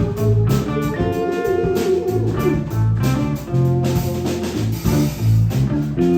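Live band playing an instrumental passage: guitar over a bass line and a steady beat.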